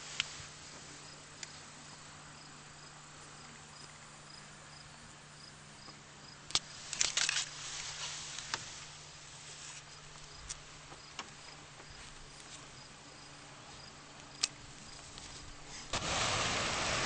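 A faint steady hum and hiss, broken by a few sharp clicks, with a faint high tick repeating about twice a second. About a second before the end, loud rushing noise of wind and water on the microphone starts abruptly.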